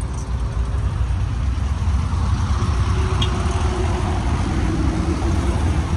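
Air-cooled Volkswagen Beetle and Kombi flat-four engines running at low speed as the cars drive past one after another, a steady low rumble.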